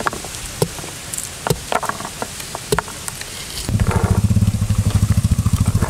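Small, sharp ticks of pomegranate arils and candied fruit bits dropping onto a tray, with a short rustling patter as a handful is scattered. About three and a half seconds in, a low, rapidly pulsing engine sound starts abruptly and keeps running, louder than the ticks.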